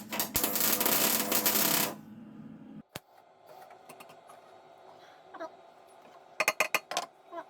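Electric welding arc crackling as a curved metal patch is tack-welded onto a rusty exhaust pipe, stopping about two seconds in. A few sharp metallic clicks follow later, several in quick succession near the end.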